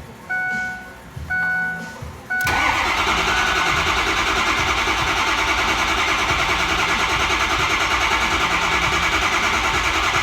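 A 2006 Ford F-350's 6.0 Power Stroke V8 diesel being cranked by the starter, a steady fast-pulsing crank starting about two and a half seconds in and going on without the engine firing, after three dashboard chimes about a second apart. The crank-no-start is the sign of missing injection control pressure (51 psi at best), which the technician suspects comes from a failed IPR valve.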